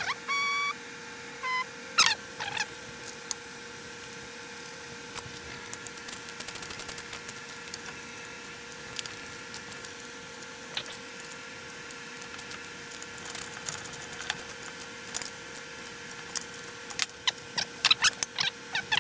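A small hand ratchet and loose metal hardware handled on an aluminium plate while a voltage regulator/rectifier is bolted on. There are scattered clicks and metallic clinks, with a brief ringing clink in the first second or two and clicks growing more frequent near the end, over a steady faint hum.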